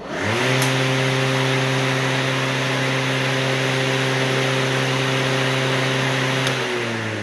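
Ferrex 40 V cordless electric lawnmower's motor and blade spinning up quickly, then running at a steady hum with a rush of air from the cutting deck. Near the end the motor starts winding down.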